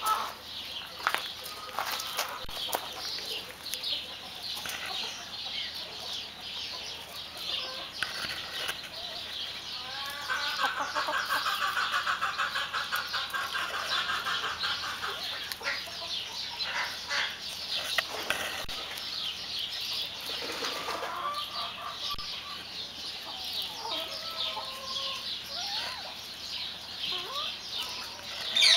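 Silkie chickens clucking and calling. About ten seconds in there is a fast run of repeated notes lasting a few seconds, and short level calls come near the end.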